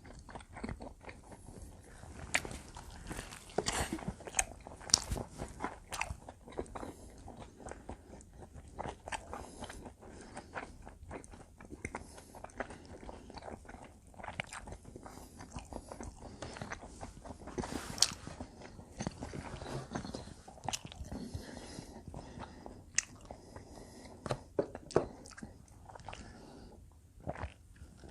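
Close-miked eating of combination pizza: biting and chewing, with many short, irregular clicks throughout.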